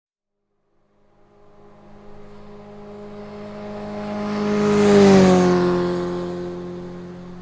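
A motorcycle passing by at steady speed. It fades in about a second in, grows louder to a peak about five seconds in, then its engine note drops in pitch as it goes past and fades away.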